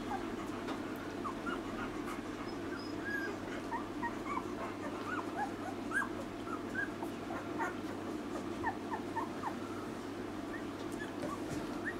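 Twelve-day-old puppies squeaking and whimpering: many short, high squeaks, scattered and overlapping throughout, over a steady low hum.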